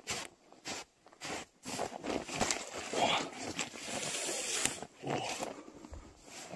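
Footsteps crunching through deep, dry snow: steady steps about two a second, then a denser stretch of continuous crunching and rustling midway as the boots wade through the drift.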